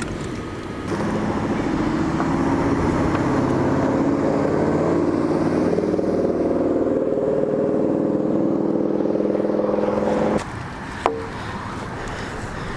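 An engine running steadily at a constant pitch, starting about a second in and cutting off abruptly near the end.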